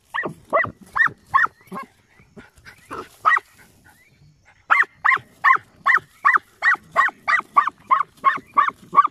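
A hunting dog barking in rapid, evenly spaced barks at an armadillo holed up in its burrow: a short run at the start, a pause, then steady barking at about three barks a second through the second half.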